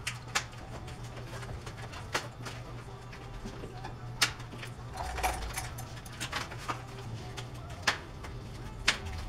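Packing material being pulled and snipped off a new bicycle by hand: scattered sharp clicks and light rustling, over a steady low hum.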